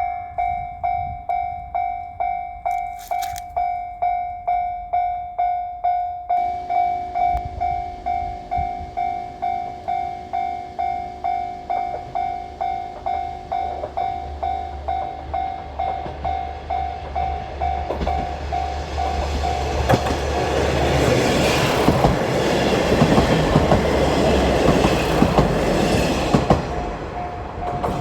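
Railroad crossing warning bell ringing steadily about twice a second. A diesel sightseeing railcar then approaches and passes through the crossing, its rumble and the clatter of its wheels over the rail joints growing loud enough to drown out the bell. The bell is heard again near the end as the train clears.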